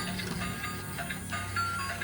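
Background music: short high melody notes over a steady low tone, with a light ticking beat.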